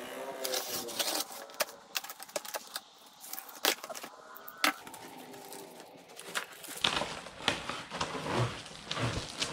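Utility knife slitting the packing tape and cardboard of a shipping box, with irregular sharp clicks and scraping. From about seven seconds in, the cardboard flaps are pulled open and handled.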